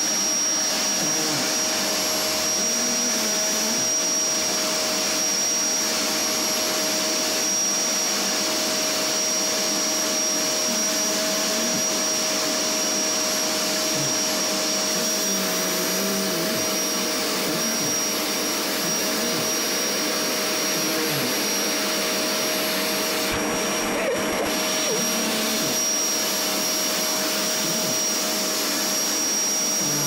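Vacuum cleaner running steadily, a constant rush of air with a steady whine in it, its nozzle being drawn over a cat's fur.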